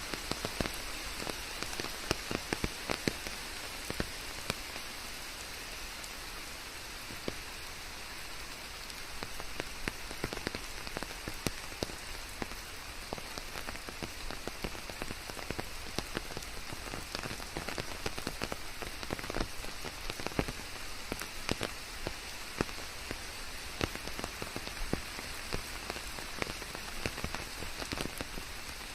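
Steady rain falling, with the hiss of the downpour and many close, separate drops tapping a surface.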